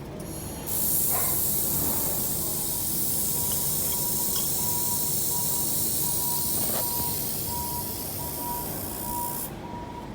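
Handheld laser welder firing: a loud steady hiss of shielding gas from the welding torch starts about a second in and cuts off suddenly near the end. A faint repeating beep sounds through the second half.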